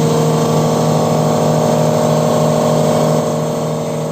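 A machine on a boat running steadily with a constant low hum and overtones, getting somewhat quieter about three seconds in.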